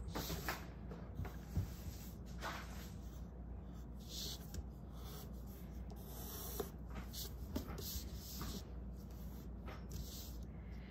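Wooden pencil scratching on drawing paper in short, uneven strokes, sketching zigzag leaf lines.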